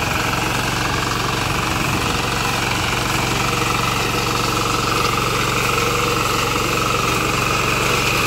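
Walk-behind self-propelled reaper's small engine running steadily under load as the machine cuts through standing grain, with a fast, even pulsing throb.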